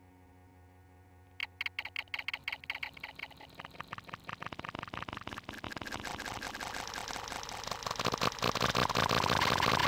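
A digitally distorted, glitchy sound effect. A faint low hum gives way, about a second and a half in, to a rapid stuttering train of clicks that speeds up and grows steadily louder into a dense buzz.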